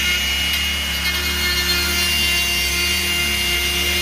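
Dremel rotary tool running with a grey cone-shaped grinding bit pressed into the wood, a steady high whine with the gritty rasp of the bit abrading the wood.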